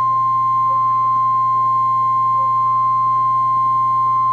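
NOAA Weather Radio 1050 Hz warning alarm tone: a single loud, steady, unbroken beep sounding from a weather radio receiver ahead of a severe thunderstorm warning message, over a low steady hum.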